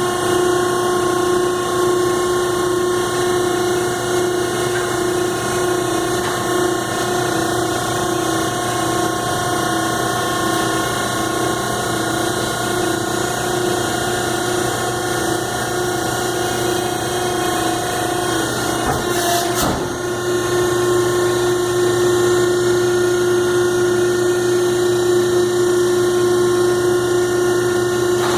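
Selco baler running with a steady mechanical drone that pulses evenly for most of the time, then runs steadier after a single sharp knock about two-thirds of the way through.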